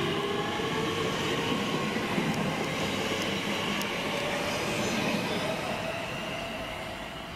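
Class 345 electric train running along the platform and drawing away: wheels rumbling on the rails under a steady electric motor whine that rises slightly in pitch, the whole sound fading over the last couple of seconds.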